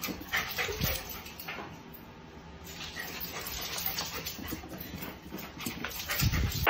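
A dog's claws clicking and skittering on a hardwood floor as it runs and spins, with a low thump near the end.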